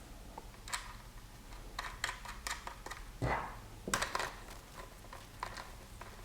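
Irregular light clicks and knocks of hard plastic taillight parts and mounting hardware being handled and fitted together, with a couple of slightly louder knocks a little past the middle.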